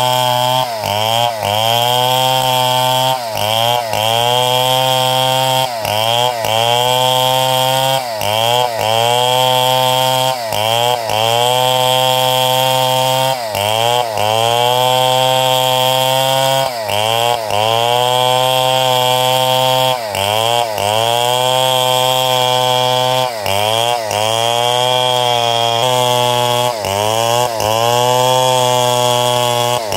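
Engine-driven saw cutting large timber, running loud and steady. Every second or two its note drops sharply and climbs back as it comes under load in the cut.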